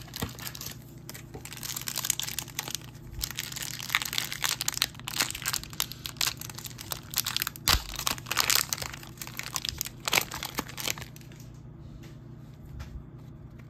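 Packaging crinkling and crackling as it is handled, in dense irregular bursts that stop about eleven seconds in.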